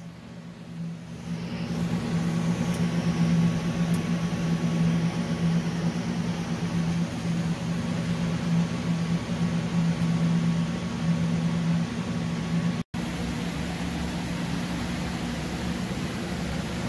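TIG welder's arc running on a steel exhaust tube joint: a steady electrical hum with a hiss over it, building up over the first second or two. About three-quarters of the way through it cuts off abruptly and gives way to a steadier shop hum.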